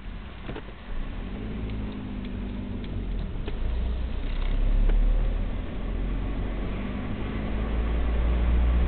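Car engine and road noise heard from inside the moving car's cabin, a steady low rumble that swells about halfway through and again near the end, with a few faint clicks in the first few seconds.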